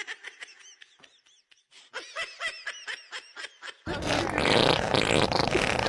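A long, loud fart noise starting about four seconds in, after a few seconds of faint high chirps.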